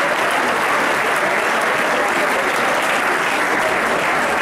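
Crowd applauding: steady, dense clapping with no break.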